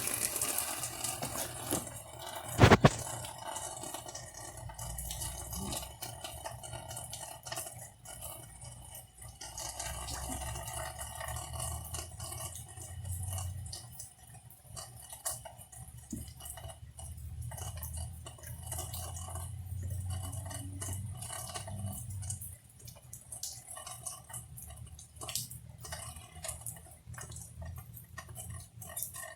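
Heavy rain pouring down, a steady wash with scattered drips and small ticks. There is one sharp knock about three seconds in.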